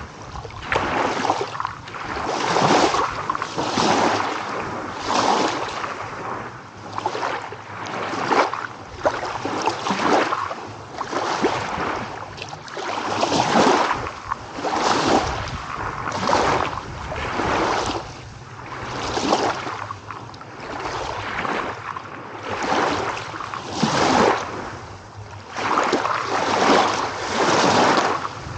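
Small ocean waves washing in over and over, one surge of hissing water about every second and a half.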